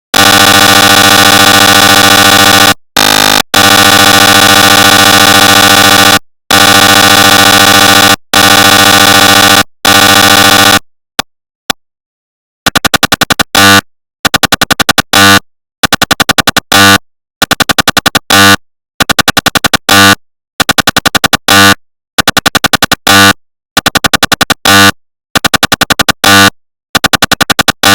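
Recreated sound of a GE 750w 3T MRI scanner running a scan. A loud, steady buzz is held for a few seconds at a time with brief breaks. After a couple of single clicks it changes, a little less than halfway through, to rapid knocking in bursts of about a second, roughly eight knocks a second, with short pauses between bursts.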